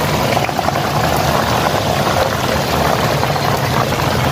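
Torrential rain pouring down in a steady, heavy rush, heard from inside a parked auto-rickshaw.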